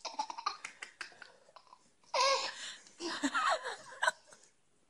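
A baby laughing in two short squealing bursts about two and three seconds in. Before them come light, quick clicks of dry dog kibble as a dog noses into the bin.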